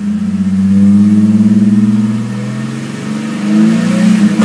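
Holden VY Commodore engine free-revving with the car standing still: the revs rise and hold, ease off briefly, then climb again to around 3,700 rpm near the end.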